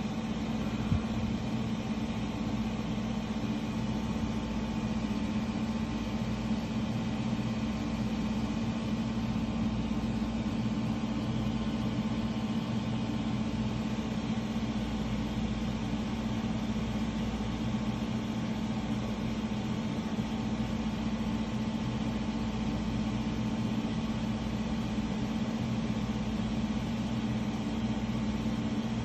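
A steady low machine hum with a constant pitch and an even background hiss.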